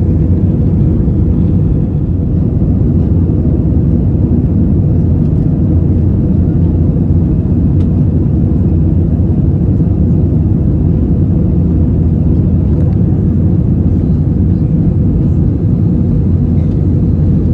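Steady engine and air noise inside a jet airliner's cabin during the climb after takeoff, a dense low rumble that holds even throughout.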